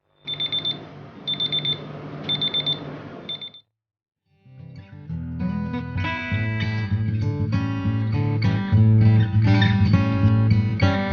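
Electronic alarm clock beeping, a high beep in quick bursts about once a second, stopping after about three and a half seconds. Then acoustic guitar music starts and carries on.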